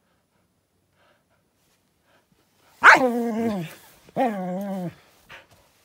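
Dog barking twice, two drawn-out barks about a second apart, each falling in pitch, starting about three seconds in.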